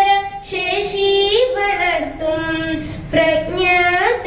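A girl singing a Malayalam song solo into a microphone, holding long notes that step up and down in pitch between short breaths.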